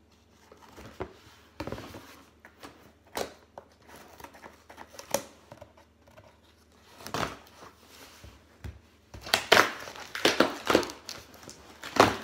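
Scissors cutting and scraping through packing tape on a cardboard box: scattered snips, scrapes and crinkles, then a louder, busier run of tape tearing and cardboard crinkling near the end as the box is pulled open.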